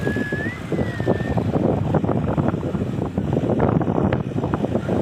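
Wind buffeting the microphone in irregular gusts, a loud rumbling rush, with a faint wavering high tone through the first second or so.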